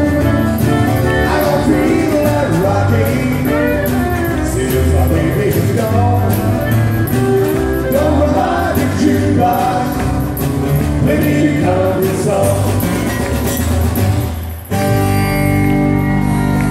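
Live country band playing a short up-tempo number: acoustic guitars, drums and fiddle, with men singing together into microphones. The music drops out for an instant near the end, then carries on.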